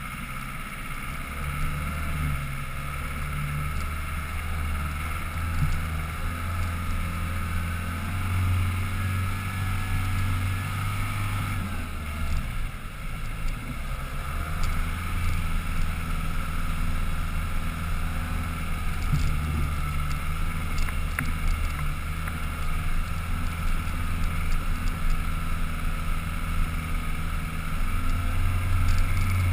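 Land Rover Defender 110's engine running steadily at low revs under load as it climbs a rough dirt track. About twelve seconds in the engine note drops away briefly, then picks up and pulls again.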